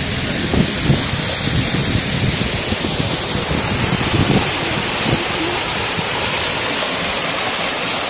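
Waterfall rushing steadily, a loud, even roar of falling water, with irregular low rumbles that die away after about five seconds.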